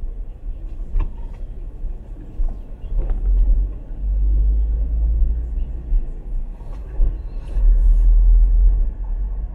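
Low rumble of a car driving on city streets, heard from inside the car, growing louder about four seconds in and again near the end.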